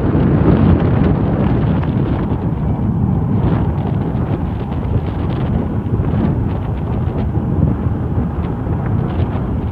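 Wind buffeting the microphone, a loud steady low rumble, mixed with the jet engine noise of airliners on the airfield.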